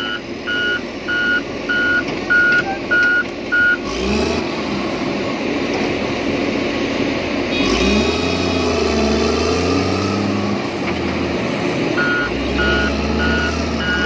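A reversing alarm beeps about twice a second for the first four seconds and starts again near the end, over the diesel engine of a Case VHP motor grader. In between, the engine's pitch rises and falls as it is worked.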